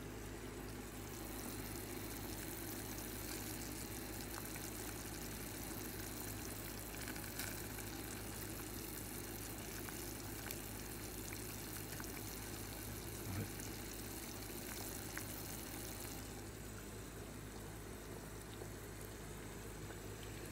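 Spicy broth simmering in a clay hotpot on a tabletop burner: a steady bubbling hiss that drops off about three-quarters of the way through, with a few light clicks.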